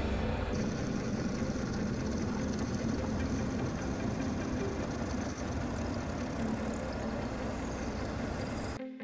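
Benchtop milling machine cutting a steel blank with a 12mm roughing end mill: a steady machining noise with a thin high whine. It cuts off abruptly near the end.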